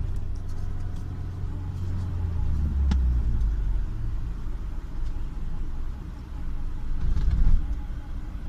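Subaru Forester on the move: a steady low road and engine drone, with a faint whirring that follows wheel speed, a little like speedometer-cable noise, and one short click about three seconds in. The whirring comes from a stuck brake pad guide.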